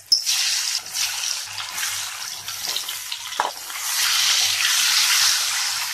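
Par-boiled small potatoes dropped into hot oil in a kadai: a sudden loud sizzle that keeps frying, swelling again about four seconds in as a wooden spatula stirs them, with a few light knocks.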